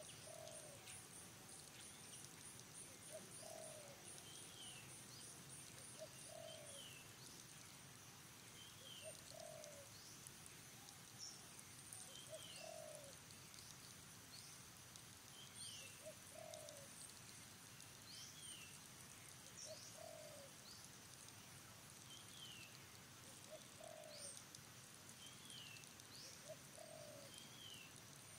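Faint bird calls repeating about every two to three seconds, each a short low note paired with a higher falling chirp. An insect's fast pulsing high buzz runs through the first several seconds.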